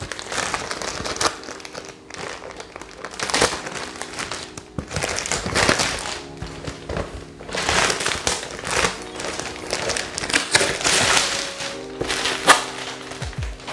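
Wrapping paper being ripped and crumpled off a cardboard box in repeated irregular bursts, over background music.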